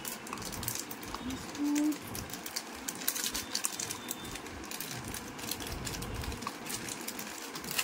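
Plastic snack packet crinkling and rustling in the hand: an irregular crackle of small clicks.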